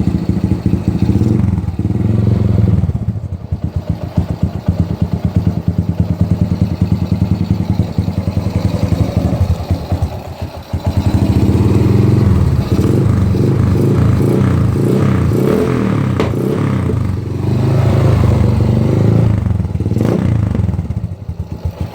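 Suzuki Shogun Pro 125 single-cylinder four-stroke engine running through an aftermarket HGM exhaust pipe. It is revved at first, settles to a slower idle, is held at higher revs again through most of the second half, and drops back near the end.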